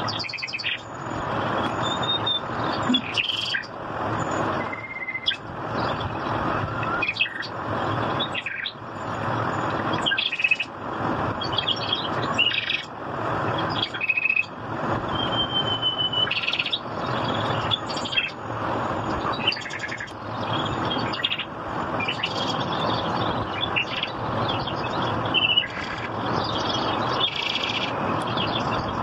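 Small birds chirping: short, scattered whistled calls, one held a little longer about fifteen seconds in, over a rushing noise that swells and fades in strokes about once a second.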